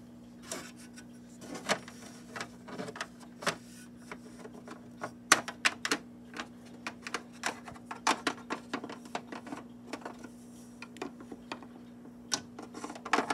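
Small plastic toy figurines tapping and clicking against a plastic dollhouse floor as they are hopped along by hand, in irregular clusters of sharp taps, over a steady low hum.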